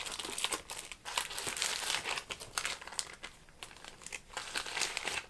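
Crinkling and rustling of a small pouch being handled as a little plug is packed back into it, busiest in the first few seconds and then quieter.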